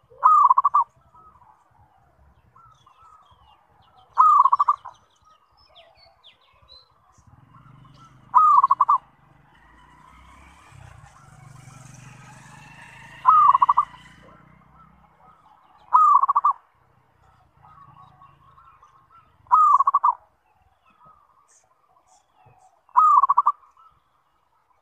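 Zebra dove (perkutut) singing: seven short phrases of quick cooing notes, each under a second, repeated about every three to four seconds.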